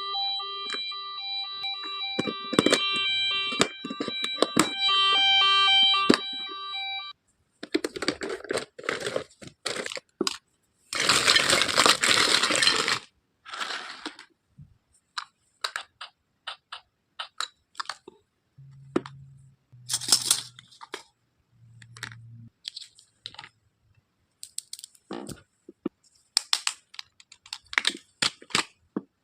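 A plastic toy doctor playset being handled and unpacked. It opens with steady electronic toy tones pulsing for several seconds over plastic clicks, then packaging tears loudly for about two seconds. Scattered clicks and taps of plastic pieces follow.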